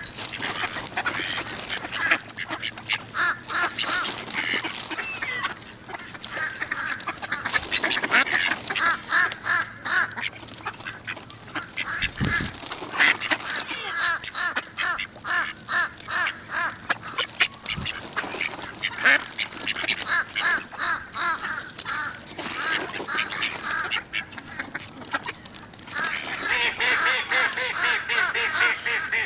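Mallard ducks quacking and chattering in rapid runs of short calls as they crowd together competing for food, with a brief lull and a busier bout near the end.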